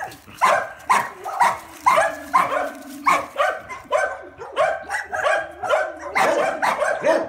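Dogs barking over and over, about two barks a second.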